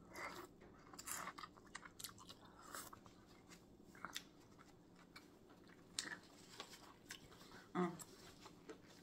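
Close-miked chewing of boiled corn on the cob: a bite at the start, then faint wet mouth clicks and smacks. A short hum from the eater near the end.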